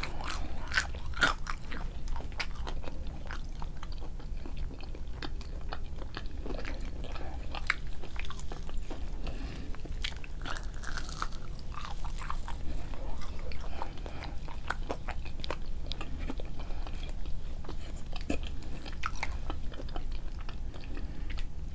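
Close-miked eating of McDonald's fast food: chewing and biting with many small crunches and mouth clicks throughout.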